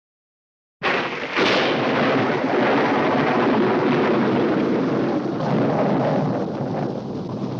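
Castle Thunder, the classic stock thunder sound effect: a sudden thunderclap about a second in, a second sharp crack half a second later, then a long rolling rumble that slowly fades.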